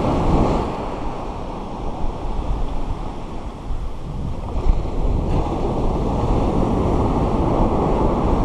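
Ocean waves breaking on a steep shore break and washing up the sand, a dense low rushing rumble that is louder at the start and swells again a little past halfway. Wind buffets the microphone throughout.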